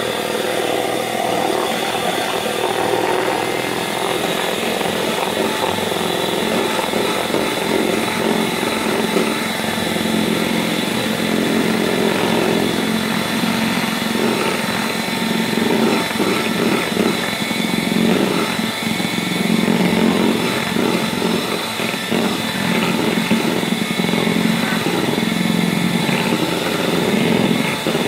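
Electric hand mixer running steadily with a motor whine, its twin beaters whipping egg whites in a plastic bowl into a thick foam.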